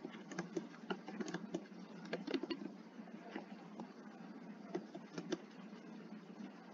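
Computer keyboard keystrokes from slow, halting practice typing: an irregular run of key clicks for about the first two and a half seconds, then only a few scattered keystrokes with pauses between them.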